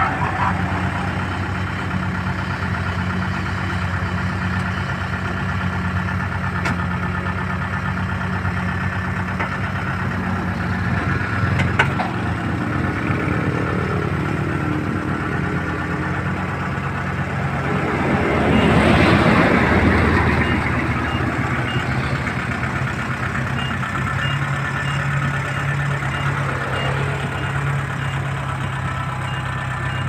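Kubota DC-70 combine harvester's diesel engine running steadily as the tracked machine crawls down aluminium ladder ramps, with a broad swell of louder noise about two-thirds of the way through.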